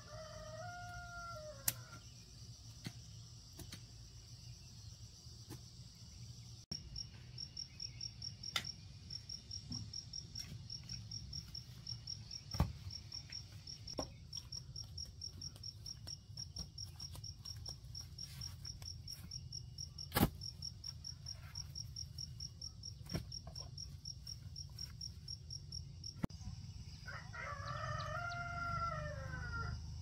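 A rooster crows briefly at the start and again, longer, near the end. Between the crows an insect, likely a cricket, chirps in a high, fast, even pulse. A few sharp knocks sound in between.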